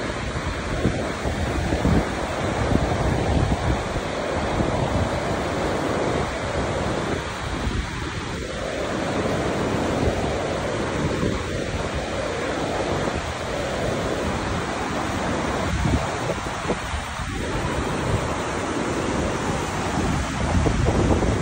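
Steady roar of Takkakaw Falls, a tall waterfall plunging onto rocks and throwing up spray, with gusts of wind buffeting the microphone.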